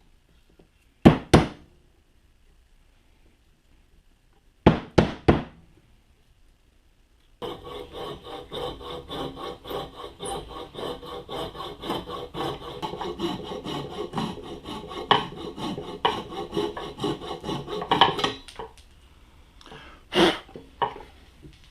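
Hand saw cutting a piece of hickory with steady back-and-forth strokes for about ten seconds, likely cutting out a wedge for the hatchet handle. A few sharp knocks of wood come before the sawing and again near the end.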